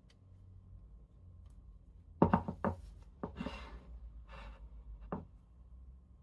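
Handling noise from a fluid tripod head and camera gear: a quick run of sharp clicks and knocks about two seconds in, then short scraping rustles and a last click.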